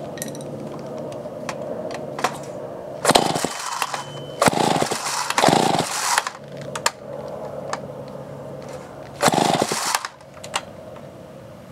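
A Homelite 900D chainsaw's two-stroke engine idles steadily and is revved up hard three times, about three, five and nine seconds in. Its carburetor is not yet tuned. The running drops away quieter near the end.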